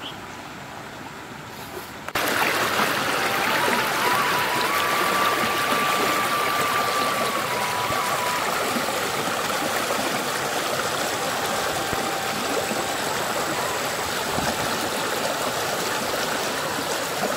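Shallow stream running over rocks in riffles, a steady rush of water. It starts abruptly about two seconds in, after a quieter opening.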